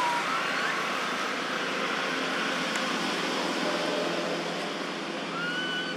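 Steady hiss of forest background sound, with a few short whistled bird calls: one under a second in and a rising one near the end.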